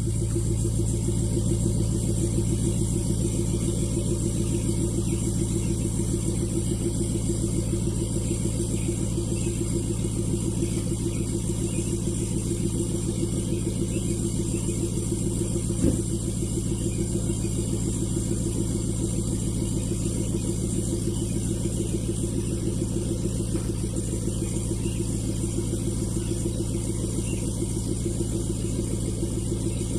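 Ford 6.7 Powerstroke V8 turbo-diesel idling steadily, heard from behind at the exhaust. A single short tap sounds about halfway through.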